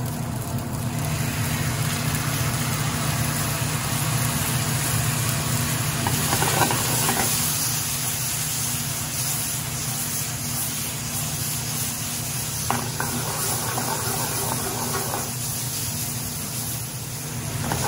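Alfredo cream sauce sizzling in a very hot pan with penne as the pan is tossed over a gas burner, a steady hiss with a few light clicks of the pan. A steady low hum runs underneath.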